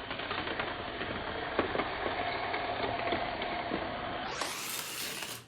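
Small electric track cars from a 1:64 toy racing set running around a plastic track: a thin motor whine with rattling and clicking over the track. About four seconds in it gives way to a short, louder hiss.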